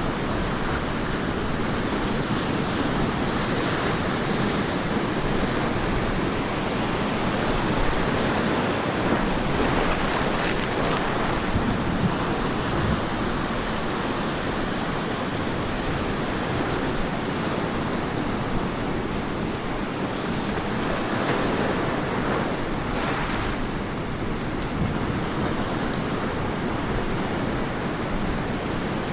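Ocean surf breaking and washing on a beach in a continuous rush, swelling a little about a third of the way in and again about three quarters of the way through.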